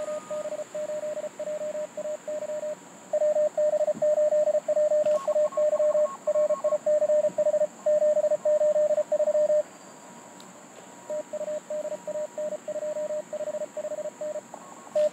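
Morse code (CW) tones from a Mountain Topper MTR4B QRP transceiver: a single-pitch tone keyed rapidly on and off, carrying a contest exchange of call signs, names and member numbers. A louder stretch of code fills the middle, with quieter code before it and, after a pause of about a second and a half, again near the end.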